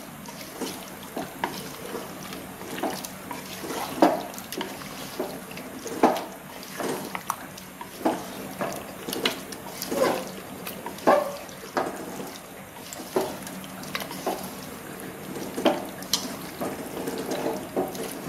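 A wooden spatula stirring thick, wet chicken masala in a pressure cooker pot. Irregular wet squelching and scraping, with sharper knocks of the spatula against the pot every second or so.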